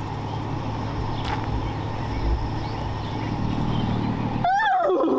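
A steady low engine-like hum, then about four and a half seconds in a loud horse whinny with a wavering, rising-then-falling pitch cuts in.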